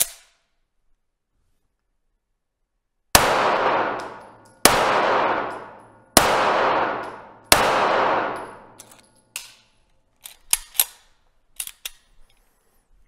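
Four pistol shots from a CZ TS 2 fired about a second and a half apart, each ringing out in a long reverberant tail of an indoor range. Near the end come several light metallic clicks and knocks of the pistol being handled.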